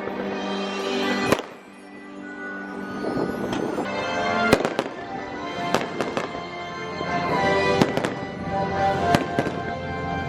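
Fireworks going off, about a dozen sharp bangs at irregular intervals, the loudest about four and a half seconds in, over music playing throughout.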